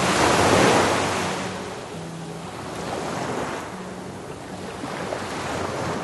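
A surf-like rushing wash of noise, swelling about half a second in and again twice later, over music with short held low notes.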